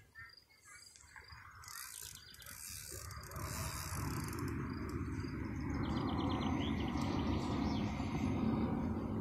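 Fishing reel being wound while a carp is played on a bent feeder rod: a steady mechanical whirr that sets in about three seconds in and grows louder. High chirping over the first seconds.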